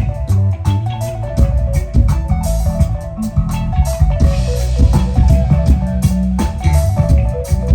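Live instrumental band music: guitar playing a repeating figure of short notes over a bass guitar line and a drum kit beat.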